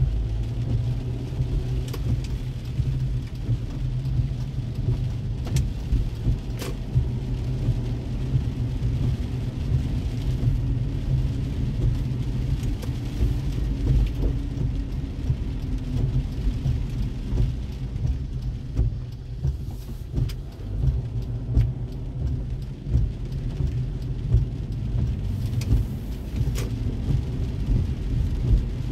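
Car interior noise while driving on wet roads in the rain: a steady low rumble of engine and tyres heard from inside the cabin, with occasional sharp ticks.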